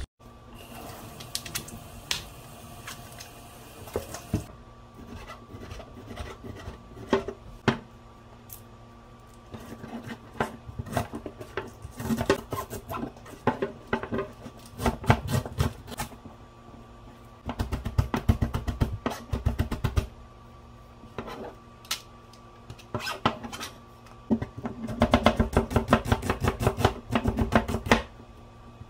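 Kitchen knife chopping lemongrass on a plastic cutting board: runs of rapid knife strokes with short pauses between them, the busiest runs in the second half.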